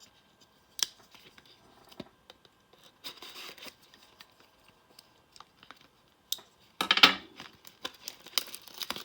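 Knife cutting open a cardboard trading-card box: scattered clicks and short scrapes of the blade and cardboard being handled, with a louder rasping cut about seven seconds in.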